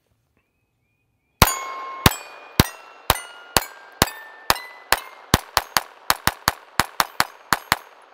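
SIG P322 .22 LR semi-automatic pistol firing CCI subsonic hollow points, about twenty shots, starting a little over a second in and getting quicker toward the end. Each shot is followed by a steel target ringing, the plates at different pitches. The pistol cycles every round of the subsonic ammunition.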